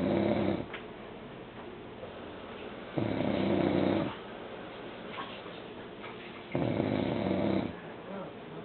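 A man snoring in deep sleep: a rough, low, pitched snore on each breath in, about every three and a half seconds and lasting about a second each. One snore trails off at the very start, and two more come about three and six and a half seconds in.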